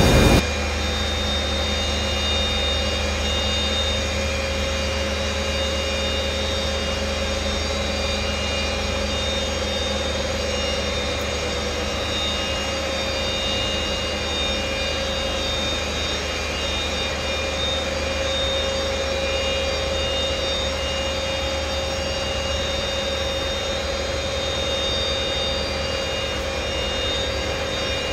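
Olive mill machinery running steadily: a constant low drone with a steady high-pitched whine over it.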